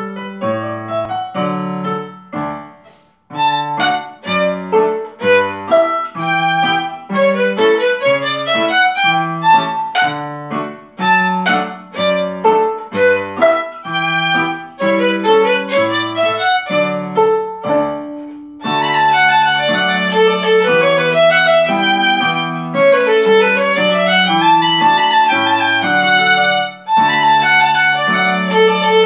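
Violin playing a lively melody in short, separate notes over a piano accompaniment. About two-thirds of the way through, the playing grows louder and fuller.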